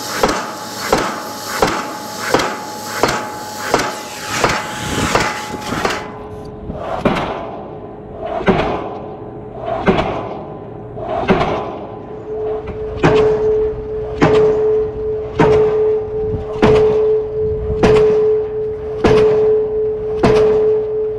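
Diesel pile hammer blows driving a steel H-beam pile, a steady run of heavy metallic strikes. For the first few seconds they come about every 0.7 s with a cutting-torch hiss over them. After an abrupt change they come about one every 1.2 s over a steady hum.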